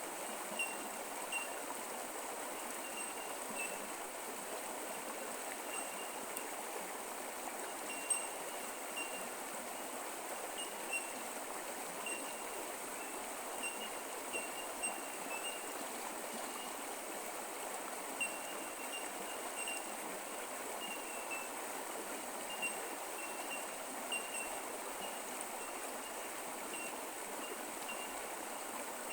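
Creek water running steadily over rocks, with a thin, steady high-pitched hum and runs of short, high repeated chirps over it.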